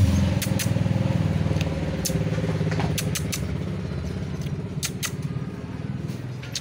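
A steady low motor-like rumble that slowly fades over the last few seconds, with a few sharp clicks scattered through it.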